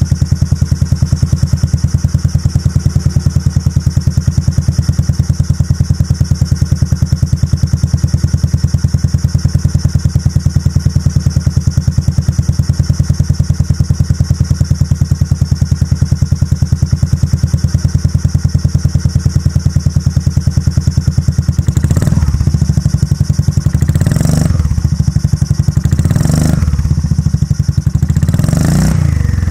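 Honda Forza Z big scooter's 249 cc single-cylinder four-stroke engine idling with a rapid, even pulsing exhaust beat through a twin stainless aftermarket muffler. Near the end it is revved three times in short throttle blips, each rising and falling back to idle.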